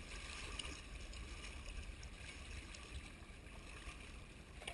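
Faint, steady rushing of a shallow river's current over stones, with a low rumble underneath.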